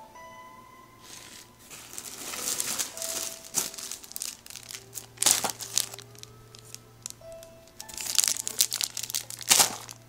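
Plastic fireworks packaging crinkling as it is handled, in several bursts, the loudest near the middle and near the end. Faint background music of sparse held notes plays underneath.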